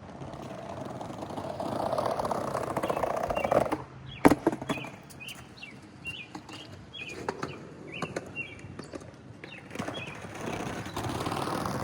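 Skateboard wheels rolling on pavement, growing louder over the first few seconds, then one sharp wooden clack about four seconds in, followed by a few lighter knocks. Birds chirp repeatedly in the middle, and the board rolls again near the end.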